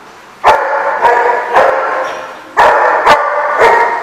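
Dog barking during rough play: six loud barks in two runs of three, about half a second apart, ringing in a hard-walled room.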